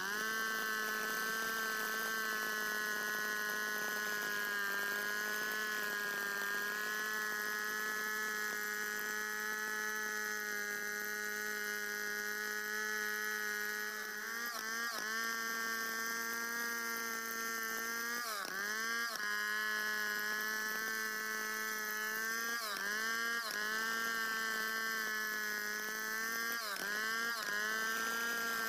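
Stihl two-stroke chainsaw ripping lengthwise along a santol log in a freehand milling cut, its engine held at steady high revs under load. In the second half its pitch dips briefly and recovers several times as the chain works through the wood.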